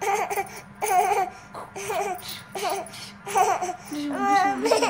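Toddler laughing in short repeated bursts while hands clap together in a clapping game; a longer, lower voice comes in near the end.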